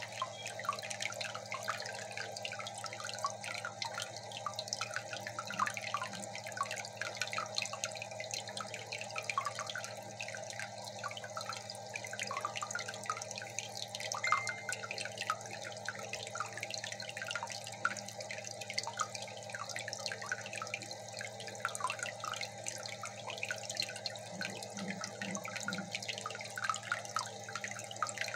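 Aquarium water trickling and dripping, a continuous irregular patter of small splashes over a low steady hum.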